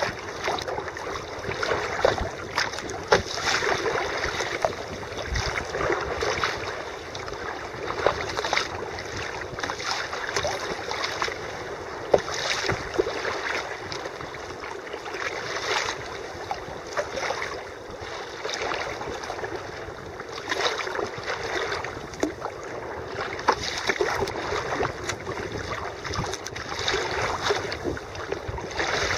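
Choppy sea water rushing and splashing against a sea kayak's hull as it is paddled, with irregular surges of spray and slaps, and some wind on the microphone.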